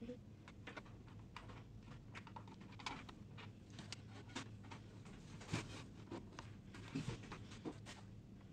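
Faint, irregular small clicks and taps of cable plugs and loose leads being handled and pushed into a printer's rear sockets, with a couple of slightly louder clicks near the end.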